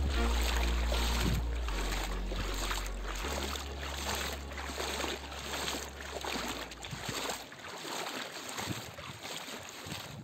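Closing music fading out: low held bass notes that change every second or two and stop about seven seconds in, over a steady rushing wash of noise that slowly dies away.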